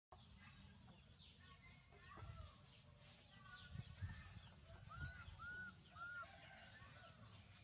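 Faint animal calls: three short arched calls in quick succession about five seconds in, over light scattered high chirping and low rumble.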